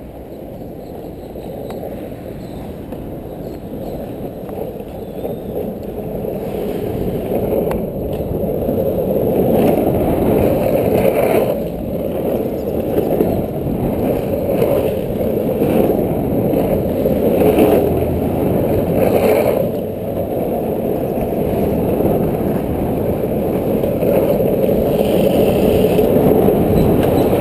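Skateboard wheels rolling fast on rough asphalt, with wind rushing over the camera. The rushing grows louder over the first ten seconds as the board gathers speed on the descent, then holds steady with a few brief dips.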